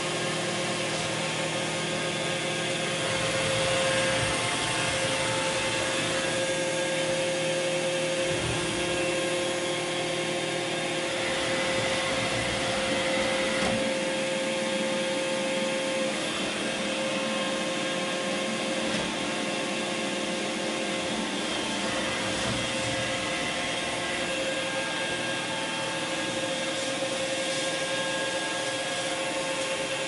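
iRobot Roomba i3 robot vacuum cleaning a bare wooden floor: a steady whirr from its suction fan and brushes, with whining tones that shift every few seconds.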